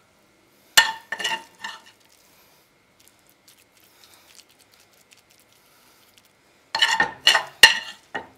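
A metal spoon clinking and scraping against a pan while spooning out scrambled-egg filling: a few sharp clinks about a second in, then another quick run of clinks near the end.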